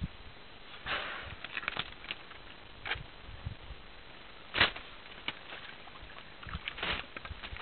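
African forest elephants working in a wet mud wallow: irregular short splashing and squelching noises of trunk and feet in the mud, the loudest a sharp one about four and a half seconds in.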